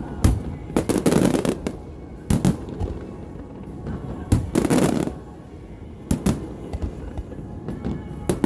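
Fireworks going off: sharp bangs every second or two, some in quick clusters followed by a short rumble.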